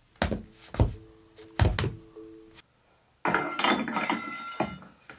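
Foley footsteps: several heavy thuds of steps on a floor. A little over three seconds in comes a dense clatter of objects being picked up and handled, with a metallic ring, and one more knock near the end.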